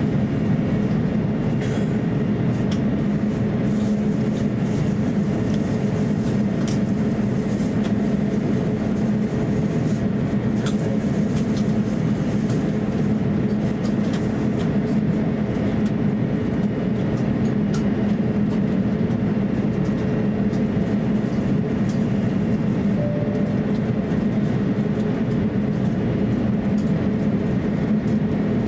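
Steady cabin drone of an Airbus A350-900 taxiing, its Rolls-Royce Trent XWB engines at low taxi power, a deep hum with a few faint ticks.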